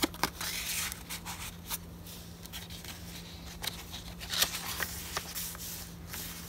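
Paper handling: a card tag slid into a paper pocket and thick tea-stained and eco-dyed journal pages turned, giving scattered rustles and soft taps over a faint steady low hum.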